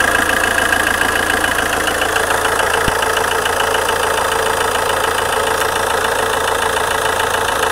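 1.9 Multijet 16V 150 hp four-cylinder common-rail turbodiesel running steadily, with a fast, even ticking over the engine sound. This is the strange noise the owner is asking about.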